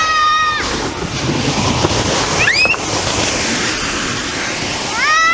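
High-pitched squeals from riders on inflatable tubes coming down a dry ski slope: one rising and held in the first half-second, a short rising one about two and a half seconds in, and another near the end, over a steady rushing noise.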